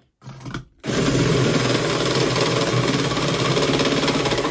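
Cordless drill running an Armeg Pro-Step step drill bit, starting about a second in and cutting steadily into a metal plate. The bit is enlarging an existing hole to the next step size.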